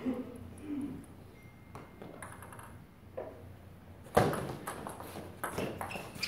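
Table tennis rally: a celluloid ball clicking off rubber paddles and the tabletop, with sharp hits about every half second to a second. There is a louder, busier stretch of noise from about four seconds in.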